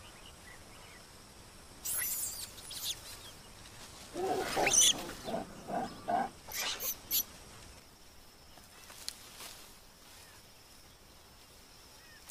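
Young lion-tailed macaques calling while playing in the trees: a run of short squeals and harsh screeches between about two and seven seconds in, loudest in the middle, over a faint forest background.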